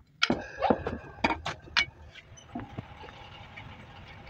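Hammer blows on steel: about six sharp metal-on-metal strikes in the first two seconds, some with a short ring, driving the old ball joint out of a Wagon R front lower suspension arm. Then only faint handling sounds.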